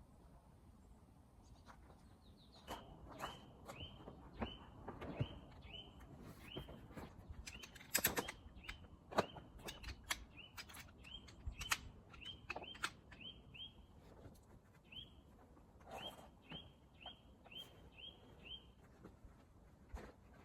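A bird calling over and over with short, sharp, identical notes about two a second, in three runs with pauses between. Faint, with scattered sharp clicks and knocks of handling in between.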